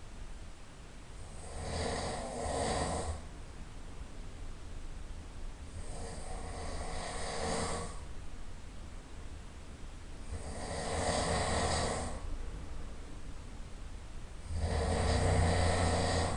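A sleeping person snoring loudly: four rasping snores about four seconds apart, each lasting a second and a half to two seconds, with quieter breathing between them. The last snore is the loudest.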